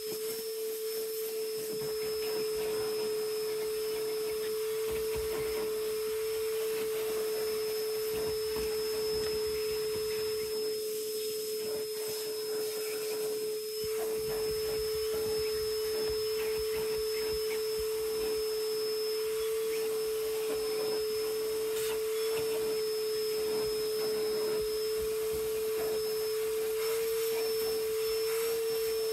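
Vacuum cleaner running steadily, a constant whine over the rush of air.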